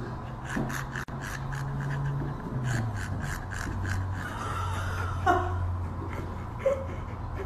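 Husky breathing hard and fast through its wide-open mouth: a quick run of noisy breaths, about four a second, that thins out after about three seconds.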